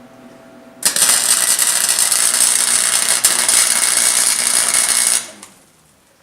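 Electric shop tool running loudly with a harsh, crackling noise for about four seconds, then cutting out as a house fuse blows.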